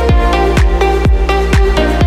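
Upbeat electronic background music with a steady kick drum about twice a second under held synth chords.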